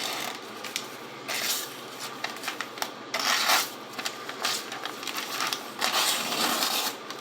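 Large lock-back pocket knife's blade slicing and dragging through a sheet of paper, with the paper rustling and scraping in about four separate strokes and a few small clicks between. The edge is not very sharp and drags rather than cutting cleanly.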